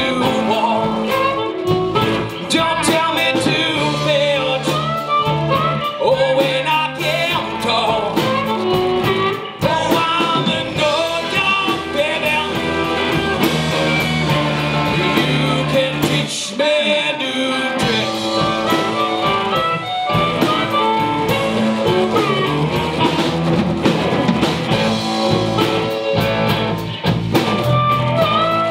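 A blues band playing live and amplified: electric guitars and a drum kit, with a man singing.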